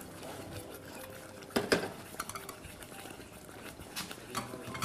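A spoon stirring and scraping a semolina, sugar and hot milk mixture in a stainless-steel saucepan, with two sharp clinks of the spoon against the pan about a second and a half in and a few lighter ones near the end.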